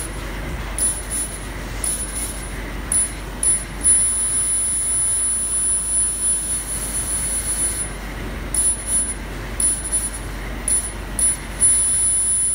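Robart flatbed laser cutting machine running as its head traces cuts: a steady rushing noise with a thin high whine that drops out briefly every second or so.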